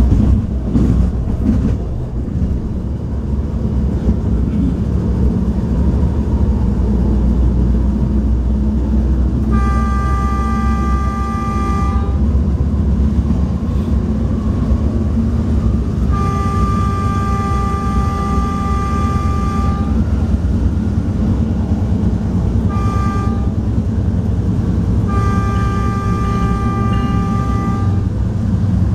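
Diesel light rail car's horn heard from inside the passenger cabin: two long blasts, a short one and a long one, the pattern of the grade-crossing signal, over the steady running of the diesel engine and the wheels on the rails.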